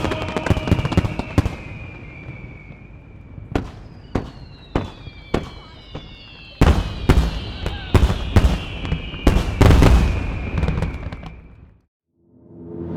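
Aerial fireworks: sharp bangs, first scattered about half a second apart, then a dense rapid volley, with several whistles falling slowly in pitch. The bangs die away to silence about 12 seconds in, and music begins just before the end.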